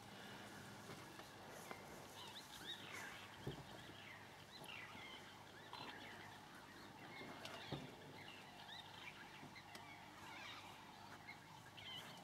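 Faint, high-pitched chirping twitters from a pack of African wild dogs (painted wolves), scattered calls throughout, with a couple of soft knocks, one a few seconds in and another just past halfway.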